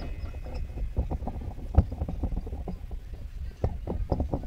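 Low steady rumble with irregular soft thumps and knocks through a microphone, the loudest a little under two seconds in; no speech.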